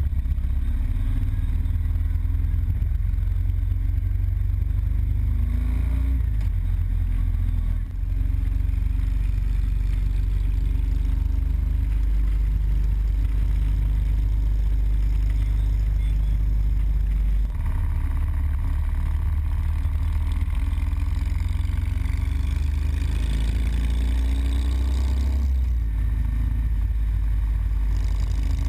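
Harley-Davidson Road Glide Custom's V-twin engine running steadily at road speed, heard from on board the bike. The engine note drops briefly about eight seconds in and shifts again around seventeen seconds, with a few short rises in pitch.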